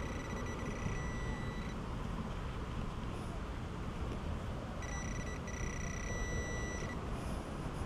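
Metal-detecting pinpointer probing a dug hole, giving a steady high-pitched buzzing tone for about two seconds at the start and again for about two seconds midway, with a short break: the sign of a metal target in the soil. Soft rustling of soil and grass runs underneath.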